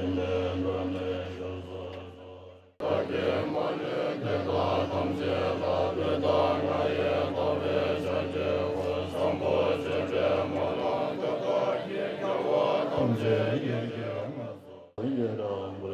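Tibetan Buddhist monks chanting prayers in unison over a low, steady drone. The chant fades out and starts again abruptly about three seconds in, then briefly drops out near the end.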